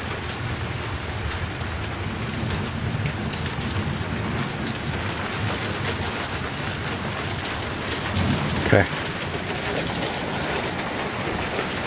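Steady rain pouring down during a thunderstorm, with low rumbling of thunder. About nine seconds in there is a brief, louder sound with a quick rise in pitch.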